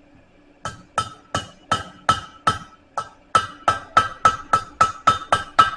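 Blacksmith's hammer tapping a hot steel bar over the anvil horn to bend it into a curve: about sixteen light, ringing strikes, coming faster toward the end.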